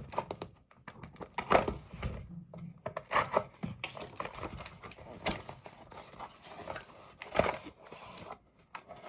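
Hands handling a small cardboard retail box and its packaging, with irregular clicks, taps and rustles.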